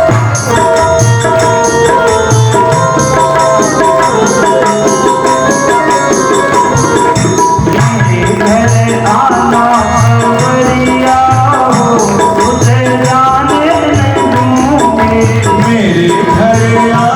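Devotional kirtan music: held keyboard chords over tabla and jingling hand cymbals keeping a steady beat.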